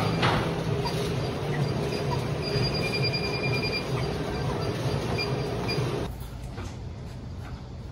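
Gym treadmill running: a steady whir from the motor and belt with a low hum, and a thin high whine around the middle. The sound drops off sharply about six seconds in.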